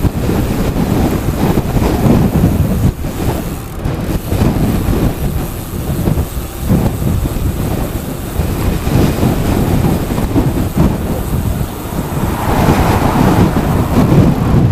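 Strong, turbulent wind buffeting the microphone while cycling downhill at speed: a loud, uneven low rumble that swells and drops with each gust.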